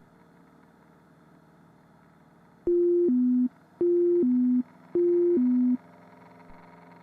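Electronic cockpit alert tone sounding three times, each a steady higher note dropping to a lower one, about a second apart, over a faint steady hum.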